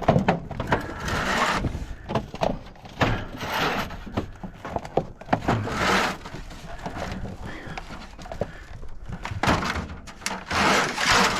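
A piece of scrap metal being smashed down, with irregular bangs, clatters and scraping.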